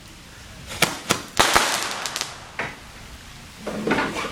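Small consumer firework going off in a rapid, irregular series of sharp pops and crackles, about half a dozen bangs spread over a couple of seconds.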